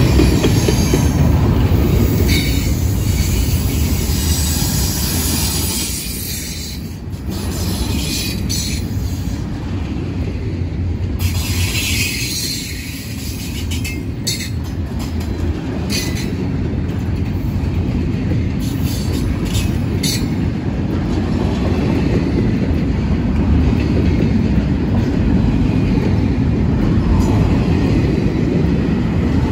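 CSX intermodal freight train's double-stack container well cars rolling past at close range: a steady rumble of steel wheels on rail, with scattered clatter and knocks and a few brief high wheel squeals.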